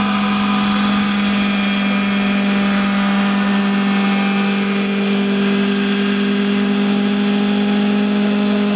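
Radio-controlled scale model Bell UH-1D helicopter running on the ground, its engine and rotors giving a loud, steady buzzing drone.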